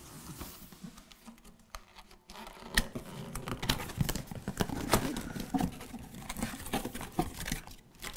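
Cardboard box being opened by hand: flaps pulled open and the contents handled, giving an irregular run of rustles, scrapes and light taps, mostly from about two seconds in.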